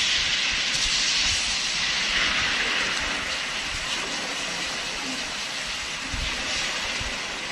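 Film-trailer storm sound effects: a steady, dense rushing hiss that slowly fades, with low rumbles about six and seven seconds in.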